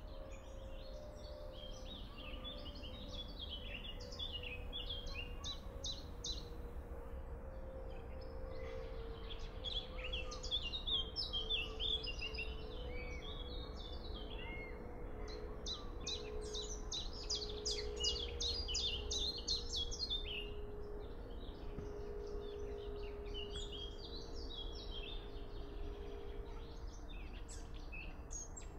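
Many small birds chirping and singing together in a dense chorus that is busiest around the middle, over a low steady rumble and a faint held hum that sags slightly in pitch.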